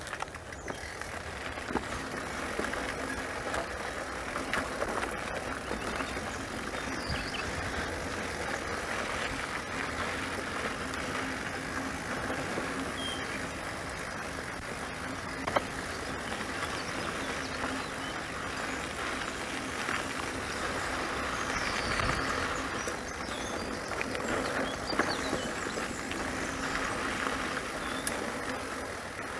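Mountain bike being ridden along a dirt track: steady tyre and riding noise with scattered rattles and clicks, and one sharp knock about halfway through.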